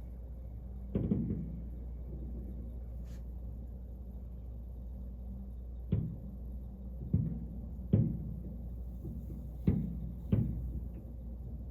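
Fireworks shells bursting: six booms at uneven intervals, each dying away quickly, over a steady low hum.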